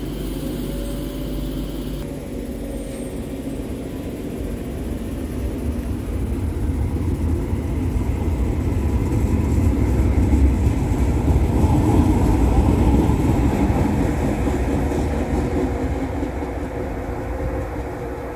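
Tyne and Wear Metrocar electric train pulling away from the platform: motor hum and wheel-on-rail rumble build as the cars pass close by, loudest about ten to thirteen seconds in, then fade as the train draws off.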